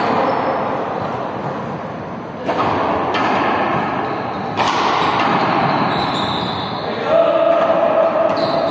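A ball bouncing on a sports hall floor, three sharp echoing thuds, over a steady background of indistinct voices in a large hall.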